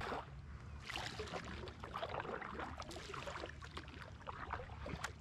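Double-bladed kayak paddle dipping into the water on stroke after stroke, with splashing and dripping from the blades, over a steady low rumble.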